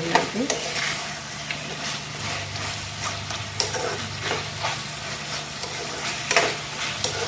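Chicken curry sizzling in a kadai while a spoon stirs it, with scattered scrapes and clicks of the spoon against the pan.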